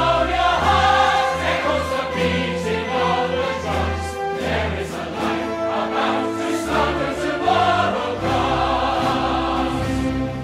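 Choral music: a choir singing sustained notes over a steady bass accompaniment.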